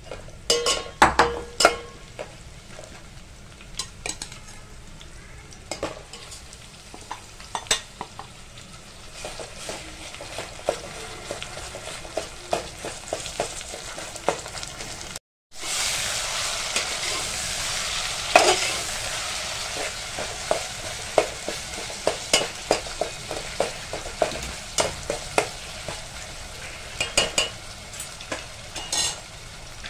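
Onions and green chillies frying in oil in a metal pot, sizzling steadily while a slotted spatula stirs, with many sharp scrapes and taps of the spatula against the pot. About halfway the sound briefly drops out, then the sizzle is louder as minced meat fries and is stirred in with the onions.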